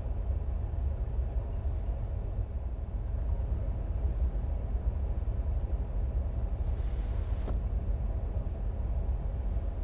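Steady low rumble inside a car's cabin, with a short soft hiss about seven seconds in.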